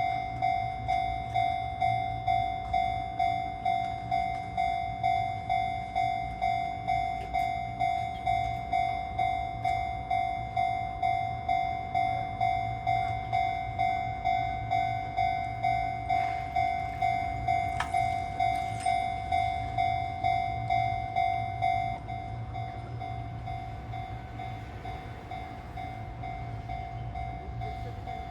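Japanese level-crossing warning bell ringing, a bright electronic clang repeating about twice a second. About 22 seconds in, the separate strikes give way to a quieter, steadier ringing.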